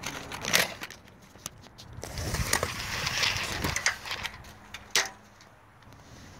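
Steel tape measure being handled along metal conduit: scattered clicks and a rough scraping stretch in the middle, with a sharp click about five seconds in.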